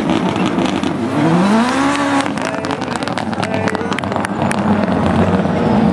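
Rallycross car engine revving hard, its pitch climbing as it accelerates out of a loose-surface corner, with scattered sharp clicks through the middle.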